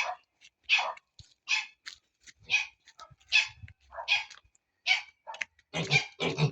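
A small dog barking in a steady series of short, high-pitched yaps, about one a second, with a few fuller, lower calls near the end.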